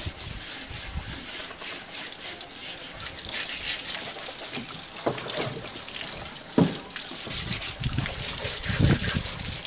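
Water from a garden hose splashing and trickling over a wooden box as it is rinsed and rubbed down by hand. A few short knocks break the splashing, the sharpest about six and a half seconds in.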